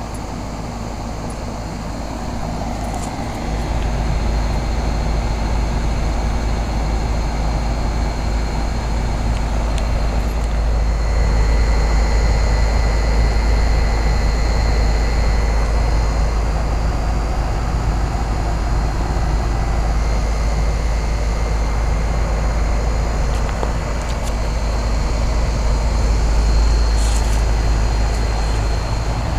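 1996 Janitrol central air-conditioner condensing unit running, its compressor and condenser fan giving a steady hum with a strong low rumble that grows louder about three and a half seconds in.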